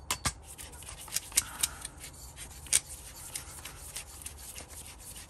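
Air reservoir being screwed by hand back onto an Edgun Leshiy Classic air rifle: irregular light clicks and rubbing of hands and metal parts as it is turned, with a few sharper clicks in the first three seconds.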